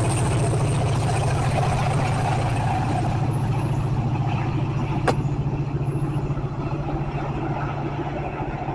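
Diesel locomotive engine running under load as it pushes a commuter train away, a steady low drone that slowly fades. One sharp clank about five seconds in.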